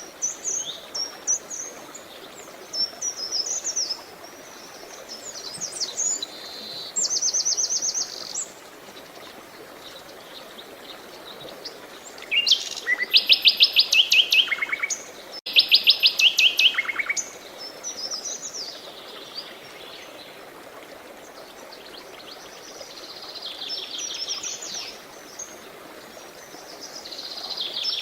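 Songbirds singing in short chirping phrases and fast trills, the loudest trills about halfway through, over a steady rush of running water.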